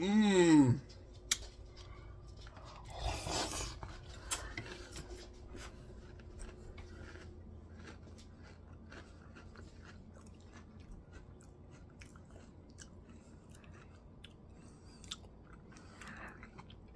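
Cinnamon cereal in milk being chewed close to the microphone: a long run of faint, irregular crunches and wet mouth clicks. It opens with a short voiced sound that falls in pitch, and there is a breathy burst about three seconds in.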